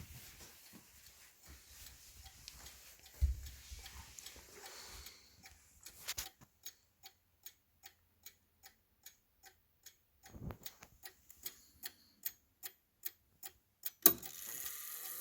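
Howard Miller three-chime clock ticking steadily, about two and a half ticks a second, with a sharper click near the end. Before the ticking stands out there is faint rustling and a single thump about three seconds in.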